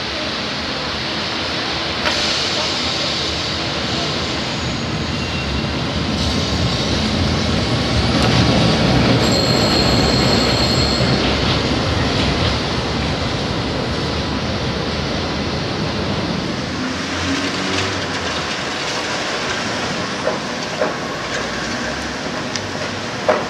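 Tram running along a street amid traffic, a steady rumble that builds to its loudest around nine seconds in. Its wheels squeal on the rails in a high thin whine for about two seconds at the peak. A few sharp clicks come near the end.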